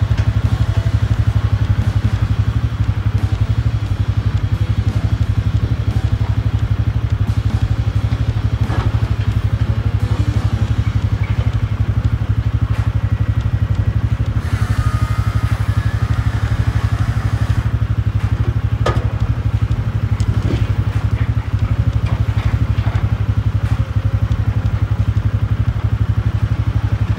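Diesel engine of a Tigercat knuckleboom log loader running steadily under load while it handles pine logs. A few sharp knocks come from the logs, and a brief higher whine sounds midway.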